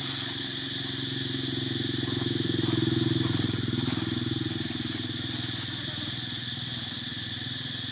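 A small engine runs steadily, growing louder about two to three seconds in and then fading, over a steady high insect drone.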